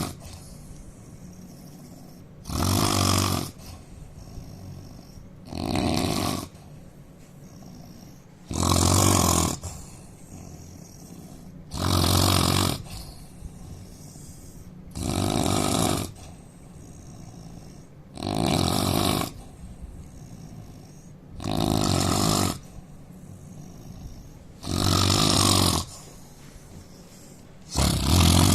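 A man snoring loudly, with one snore about every three seconds, each lasting about a second.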